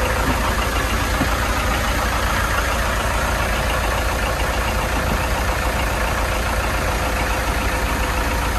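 Marinised Land Rover 200Tdi four-cylinder turbodiesels idling steadily, heard close over the open engine hatches.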